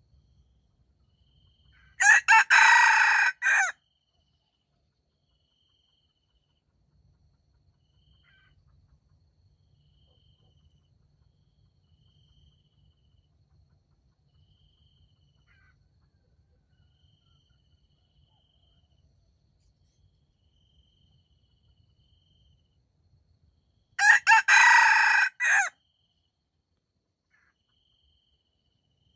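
Red junglefowl rooster crowing loudly twice, each crow lasting under two seconds, about twenty seconds apart. Faint insect chirps repeat at an even pace between the crows.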